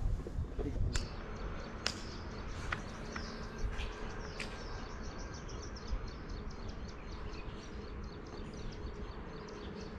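Insects chirping in a fast, even pulse of high ticks, about four or five a second. A few sharp clicks come in the first few seconds, over a low rumble.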